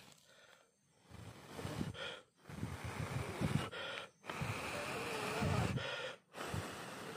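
A man breathing hard in about four long, gasping breaths, winded from spinning a hand-drill spindle for a friction fire.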